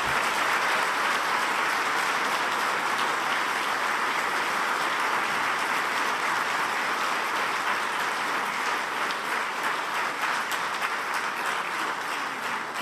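Audience applauding, a dense and steady clatter of many hands clapping that begins to die down near the end.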